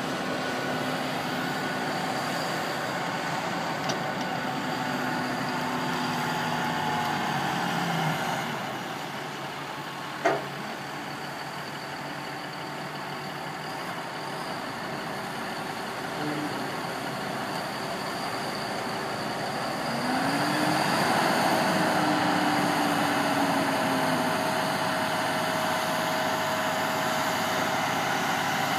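Massey Ferguson 7624 tractor's six-cylinder diesel engine running under load as it pulls a Penta silage dump wagon, with a single sharp knock about ten seconds in. About two-thirds of the way through the engine grows louder, its pitch rising and then easing off, as the wagon's box starts to tip.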